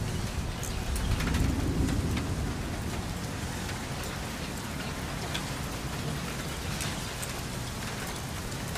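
Steady rain falling, with scattered drops ticking close by, and a low rumble of thunder that swells about a second in and fades by the third second.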